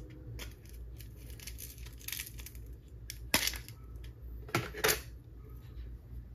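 Clear plastic blister tray crackling and clicking under the fingers as a small 1/6-scale pocket watch on a chain is worked out of it, with a few sharp plastic snaps.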